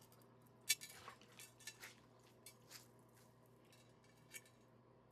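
A few faint, light clicks and clinks, several in the first three seconds and one more near the end, against a quiet room.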